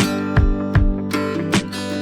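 Background music: guitar strumming over a steady beat.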